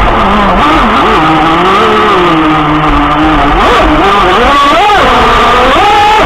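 The twin electric motors of an RC catamaran running at speed, heard from a camera on the hull. Their whine dips in pitch about two to three seconds in, then climbs again near the end as the throttle changes. Underneath is a steady hiss of water spray.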